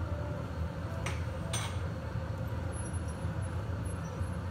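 Steady low roar of a glass studio's gas-fired furnace, with two sharp metallic clinks about half a second apart a little after a second in, as the blowpipe and hand tools meet the glassblower's bench.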